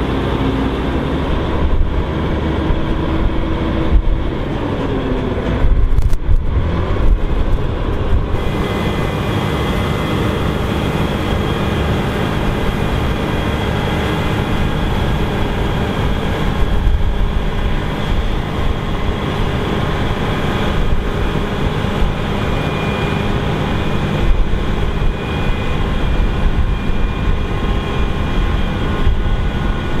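Claas Lexion 8900 combine harvester running while harvesting canola: a loud, steady heavy-engine drone with the hum of its threshing and straw-chopping machinery.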